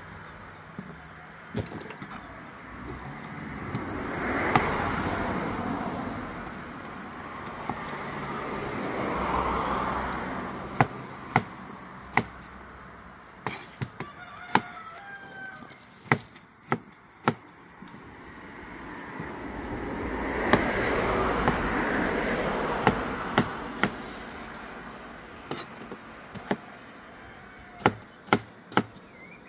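Knife chopping cocoyam (coco): sharp knocks at irregular intervals. Under them a rushing background noise swells and fades three times.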